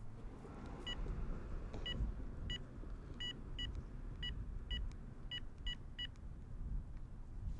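Cell phone keypad beeping as a number is dialled: about ten short, identical key beeps at an uneven pace, over a low steady background rumble.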